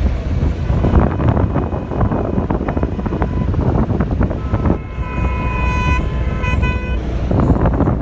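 Steady rumble and wind noise of a moving road vehicle, filmed from its window. A vehicle horn sounds a long honk about five seconds in, followed by a shorter one.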